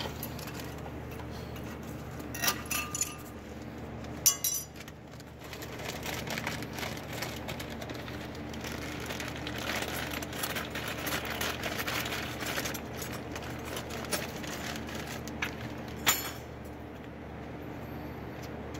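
Small metal brake parts clinking and clicking by hand a few times, with a stretch of rustling handling in the middle, over a steady low hum.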